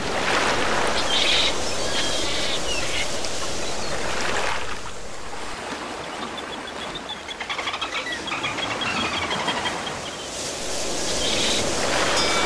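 Ocean surf washing onto a beach, with bird calls about a second in and again near the end. In the quieter middle stretch, a rapid chattering run of clicks with a thin whistle-like tone, as from a dolphin underwater.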